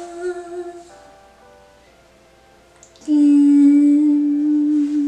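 A woman singing long held notes without words: one note that ends about a second in, then after a pause a louder, lower note held from about three seconds in.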